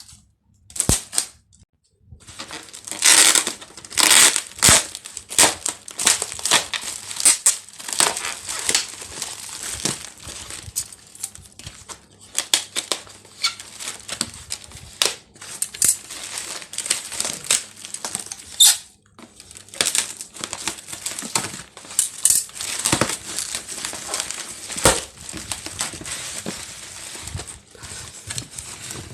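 Plastic bubble wrap and packaging crinkling and tearing as a parcel is unwrapped by hand, in irregular rustling handfuls with a short pause about two seconds in.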